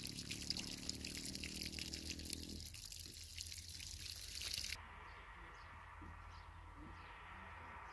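Trickling, dripping water that cuts off abruptly about five seconds in, leaving a quiet background with a few faint high chirps.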